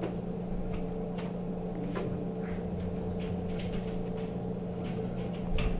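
Faint scattered ticks and light knocks as small screws are driven into a receipt printer's plastic cover with a Phillips screwdriver, with a slightly louder knock near the end. A steady low hum sits underneath.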